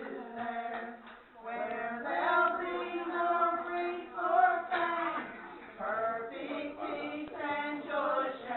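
A small group of women's voices singing a hymn together, with long held notes.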